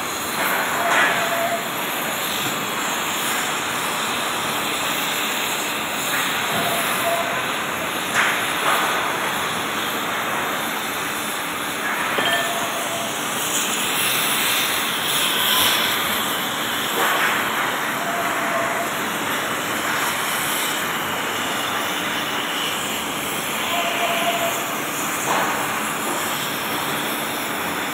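Oxy-fuel gas cutting torch hissing steadily as its oxygen jet cuts through an iron billet, with a few short crackles.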